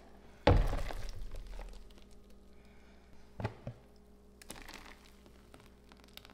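Thick blended Roma tomato purée pouring out of a blender jar into a metal roasting pan. A loud wet splat about half a second in tails off over a second or so. A few light knocks follow, from the plastic tamper against the jar as it pushes out the rest.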